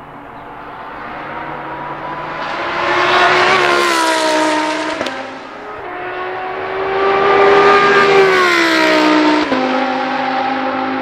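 Lamborghini Huracán Super Trofeo EVO race car's 5.2-litre naturally aspirated V10 at high revs. The engine note climbs, falls away, then drops suddenly at a gear change about five seconds in. It climbs again and drops once more near the end.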